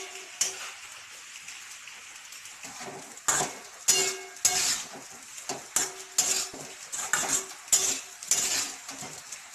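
A spoon scraping and clinking against a pan as boiled potatoes are stirred with ground spices in hot ghee, over a low sizzle of frying. For the first three seconds there is mostly the sizzle; after that come irregular scraping strokes.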